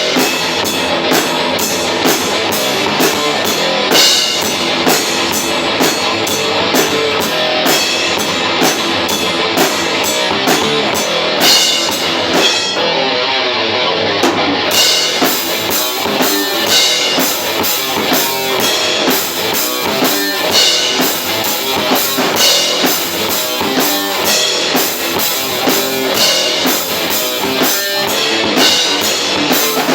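A metal band rehearsing live: a drum kit with rapid, constant cymbal strikes and bass drum under electric guitar, played loud. About 13 seconds in the cymbals drop out for about two seconds before the full beat returns.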